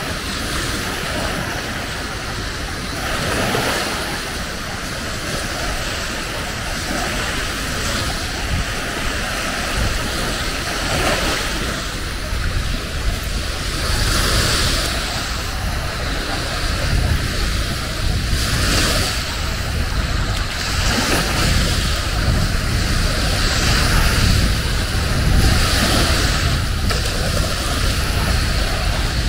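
Surf washing onto a beach, swelling every few seconds over a steady low rumble.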